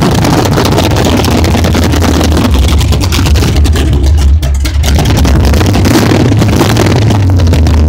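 Big-block 454 V8 drag-car engine with a 1080 Dominator carburettor, running loud with a steady low rumble; its note changes briefly about four and a half seconds in.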